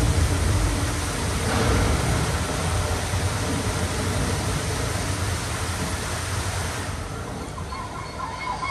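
Rows of fountain water jets spraying: a steady rushing hiss over a low rumble, which thins out about seven seconds in as the jets shut off.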